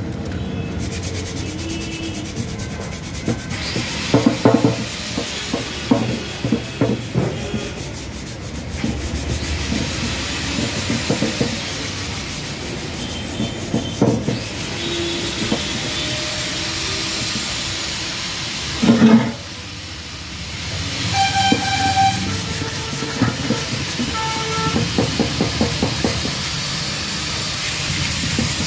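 Hand sanding of the painted Yamaha R15 fuel tank: sandpaper rubbing over the paint, with scattered knocks and one loud knock about two-thirds of the way through.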